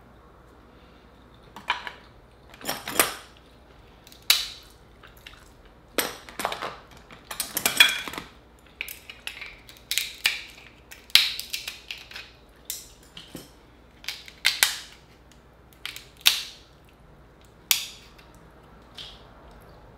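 Cooked Dungeness crab shell and legs being cracked and snapped apart by hand: a string of sharp, irregular cracks and crunches close to the microphone.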